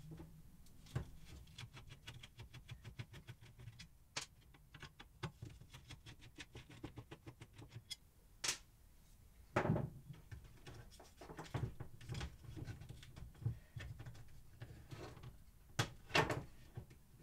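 Screws being backed out of a KTM Duke 390's plastic stock tail unit with a screwdriver, a quick run of fine clicks. Then scattered knocks and clatters as the plastic mudguard and metal bracket are handled and parts are set down on a workbench, the loudest knocks about ten and sixteen seconds in.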